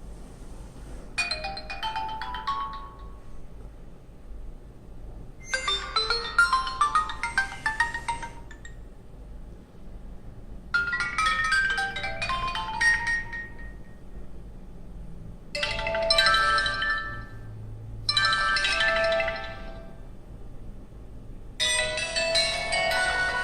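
HTC Desire 610 ringtones previewed one after another from the phone's speaker. There are six short chiming melodies of two to three seconds each, with brief pauses between them; the last is still playing at the end.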